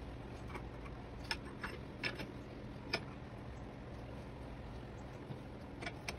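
Scattered light clicks and knocks as a wooden bracket is handled against the wood-padded jaws of a steel bench vise: several in the first three seconds, the sharpest about three seconds in, and two more near the end, over a low steady hum.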